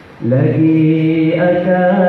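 Mawlid devotional chanting by a male voice in long, held notes. After a brief lull, a new phrase starts about a quarter second in, sliding up into a sustained note and stepping up in pitch about halfway through.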